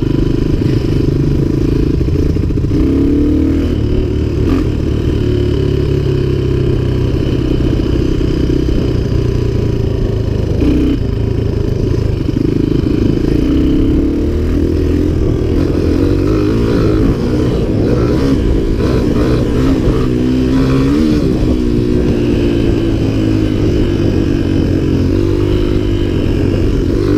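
Dirt bike engine heard from the bike itself while riding along a dirt trail, running steadily, its pitch rising and falling as the throttle opens and closes, with the swings biggest about two-thirds of the way in.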